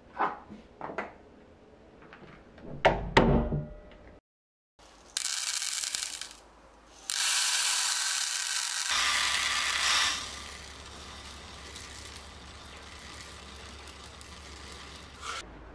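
Dry rice grains poured from a container into a pot: a hissing rattle in two pours, a short one and then a longer, louder one of about three seconds. Before that, a few short knocks.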